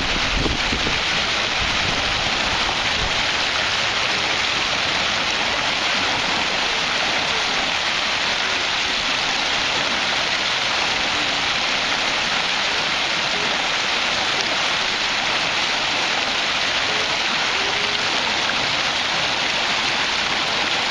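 Fast-flowing river rushing steadily past the bank: a constant, even hiss of moving water.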